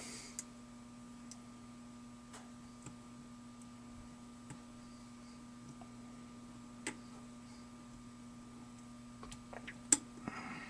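Faint, sparse metallic clicks of a lock pick raking and setting pins in an American 1100 Edge padlock held under a tension wrench, with a quick cluster of clicks and one sharper click near the end. A steady low hum sits underneath.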